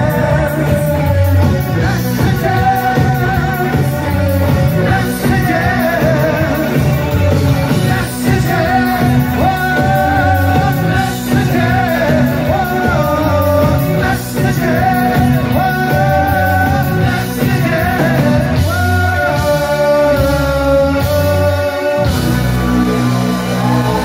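Live new wave rock band playing a song with a lead singer, heard from within the audience of a club. About two seconds before the end the beat stops and a chord rings on.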